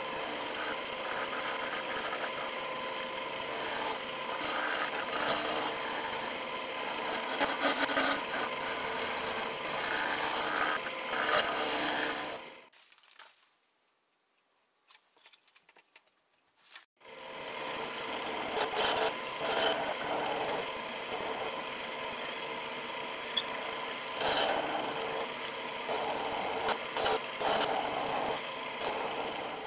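Milling machine end mill cutting a slot into a steel angle: steady spindle and motor tones under a scratchy cutting sound. It stops suddenly about 12 seconds in, leaving about four seconds of near silence, then the milling starts again.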